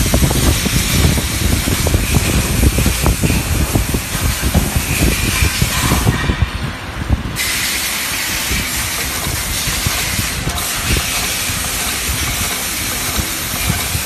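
Automatic snap button attaching machine running while plastic overall film is fed and crinkled under its head. A steady hiss carries throughout, with rapid irregular knocks in the first half, then a steadier mechanical running sound.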